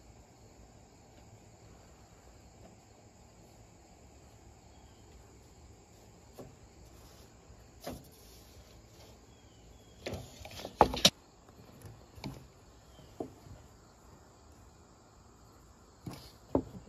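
Steel tape measure being handled against plywood: scattered short clicks and taps, with a brief rattle and two sharp clicks close together about ten seconds in, the loudest moment. Faint crickets underneath.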